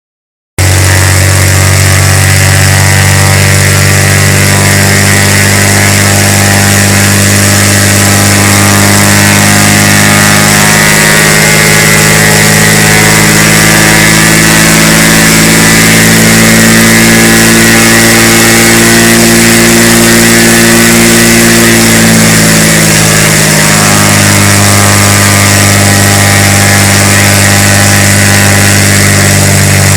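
Cessna U206F's six-cylinder fuel-injected piston engine and propeller running loud and steady on a ground run, freshly overhauled. The pitch rises about eleven seconds in, holds, then falls back again after about twenty-two seconds.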